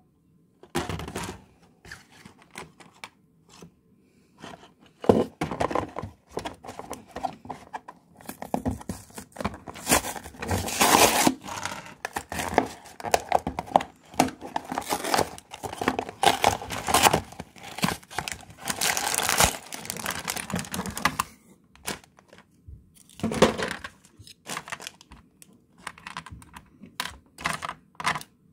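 Hands opening a small cardboard Lego box, with irregular tearing and scraping of the cardboard, then crinkling a clear plastic parts bag near the end.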